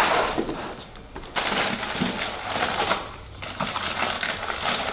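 Cardboard and paper packing crinkling and rustling as a shipping box is opened and unpacked by hand, with two brief pauses.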